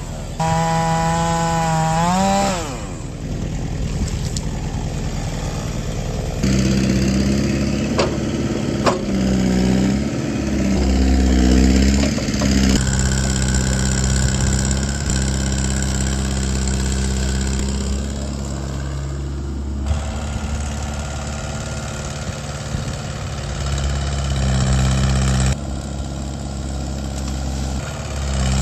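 A two-stroke chainsaw revs up and back down a couple of times near the start. After that, engines run steadily with a low rumble, their pitch stepping between a few levels.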